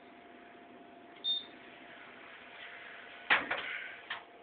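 Snack vending machine: a short high keypad beep about a second in, then near the end a loud thud and a few knocks as the selected item drops into the delivery bin, over a faint steady hum.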